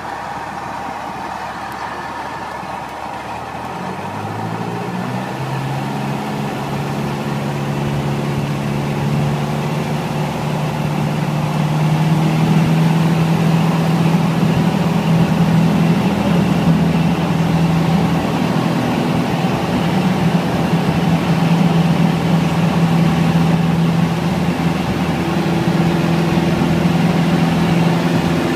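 Light aircraft's propeller engine heard from inside the cockpit, coming up to takeoff power. The engine note rises in pitch and grows louder about four seconds in, then holds a steady, loud drone.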